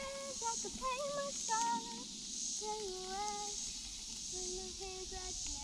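A young girl singing to herself in short held notes, some sliding up or down in pitch. Behind it is a faint high hiss that pulses about once a second.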